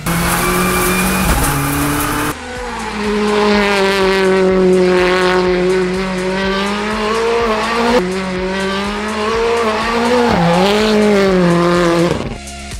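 Rally car engine at speed on gravel, then held at high, steady revs while the car spins donuts on tarmac with its tyres squealing. The revs dip and climb back near the end.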